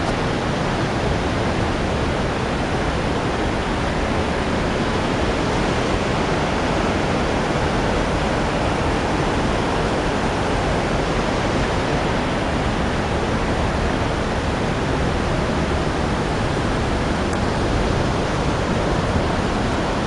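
Waterfall water rushing: a loud, steady, even rush with no breaks.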